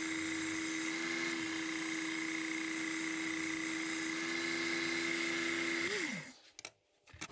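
Work Sharp Ken Onion Elite belt sharpener running steadily with a high whine, then switched off about six seconds in, its pitch falling quickly as the motor and belt spin down. A couple of faint clicks follow.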